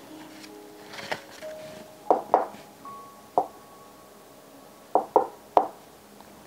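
A sparse run of about seven sharp clicks and knocks: one about a second in, a pair just after two seconds, one at about three and a half, and a quick three near five seconds. Some leave a short ringing tone, over a few faint held notes.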